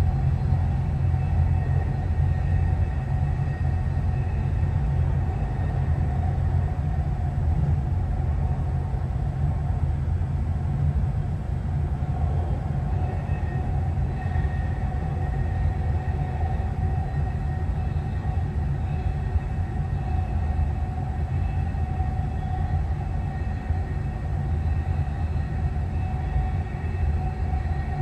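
Dubai Metro train running between stations, heard from inside the passenger car: a steady low rumble with a constant faint whine over it.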